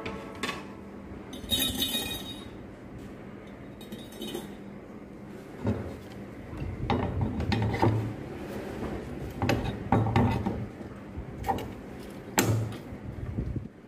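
Metal parts clinking and knocking on a wooden workbench as coil springs are fitted onto the steel rods of a homemade router base and an angle grinder is set onto it. The sounds come as scattered clinks and dull thumps, with the loudest knock near the end.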